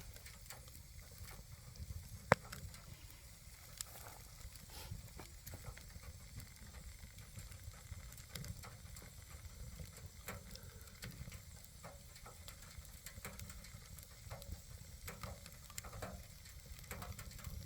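Wood fire burning in a wood stove, crackling and popping irregularly, with one sharp loud crack a little over two seconds in.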